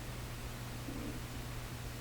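Room tone: a steady low hum under a faint hiss, with one brief, faint rustle about halfway through.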